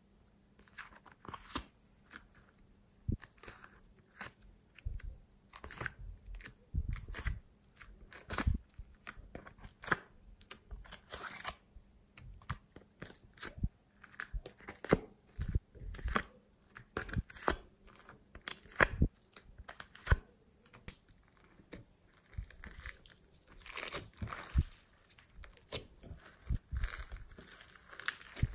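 Slime being squeezed, poked and stretched by hand, giving irregular crackly clicks, pops and squelches.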